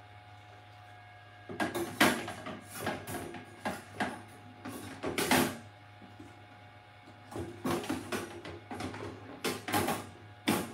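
Hollow plastic knocks and clatters in two irregular bouts, beginning about a second and a half in, as the clear plastic tank of a resin wash station is handled.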